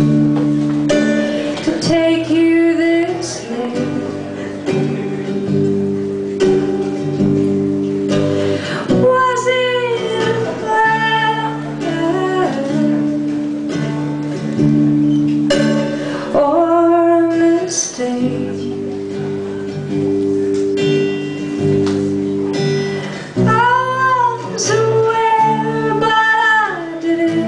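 Live song: a woman singing to her own steel-string acoustic guitar accompaniment, with the guitar's chords sounding throughout and sung phrases coming and going over it.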